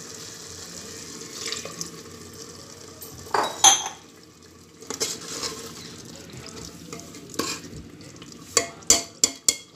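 Steel ladle stirring keema in a pressure cooker pot, scraping through the meat over a soft sizzle, with sharp metal clinks as it knocks against the pot: the loudest about three and a half seconds in and several quick ones near the end.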